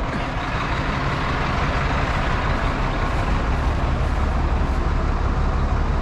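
Hopper bottom semi truck's diesel engine running steadily at low speed while the truck is slowly maneuvered into position over a grain auger pit, a deep drone that grows a little heavier in the last second or two.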